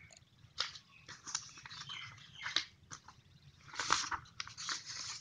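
Sheets of card and chart paper being handled and shuffled, with irregular rustles and crackles.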